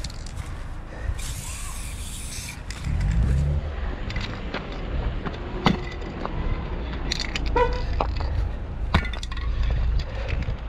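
Aerosol spray-paint can hissing in one short burst about a second in, then scattered sharp clicks and clinks as cans are handled, over a steady low rumble of wind and street noise.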